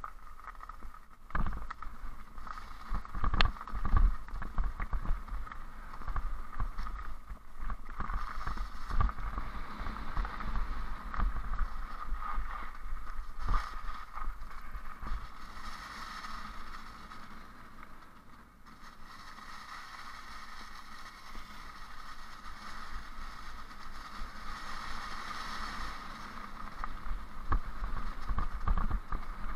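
Ride down a leaf-covered forest trail, heard from the onboard camera: a steady rushing noise with a constant whine, frequent knocks and rattles as it goes over bumps, and wind rumbling on the microphone. It eases off briefly a little past the middle.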